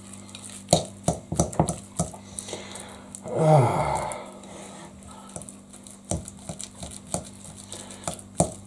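Ripe bananas being mashed by hand in a glass bowl: a run of light, irregular clicks and taps against the glass, with one short sound falling in pitch about three and a half seconds in.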